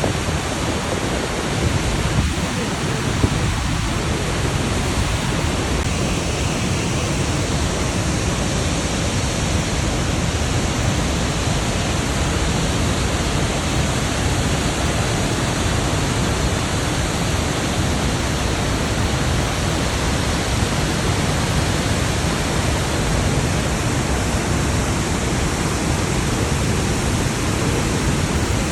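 Niagara Falls: a steady, dense rush of falling water that holds at one level throughout.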